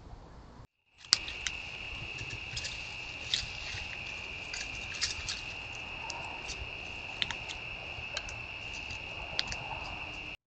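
Night insects trilling in one steady, continuous high note, with scattered short clicks and ticks on top. The sound cuts in about a second in with a sharp click, the loudest moment, and stops abruptly near the end.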